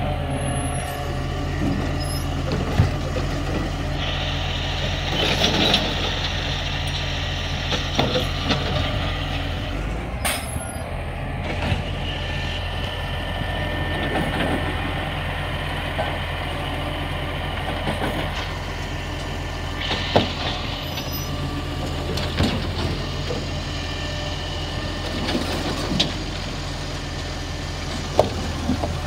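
Dennis side-loader refuse truck running while its hydraulic arm lifts a recycling wheelie bin and tips it into the hopper. The hydraulics whine in stretches over the steady engine, and there are several sharp bangs as the arm grips, shakes and drops the bin and the lid slams.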